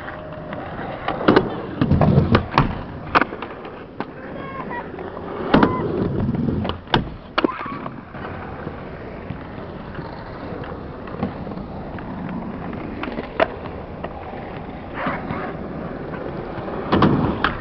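Skateboard wheels rolling on smooth concrete, broken by a series of sharp wooden clacks of the board's tail and deck hitting the ground as skaters pop tricks and the board lands or flies away.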